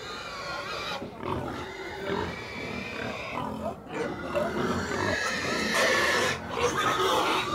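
Pigs in a crowded pen grunting, the noise growing louder in the second half.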